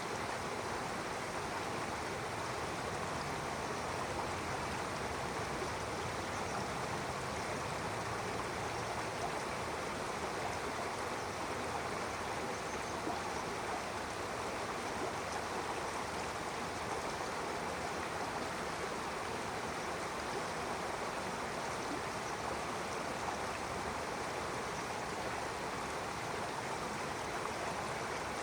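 Stream water flowing steadily over rocks, a constant rushing babble.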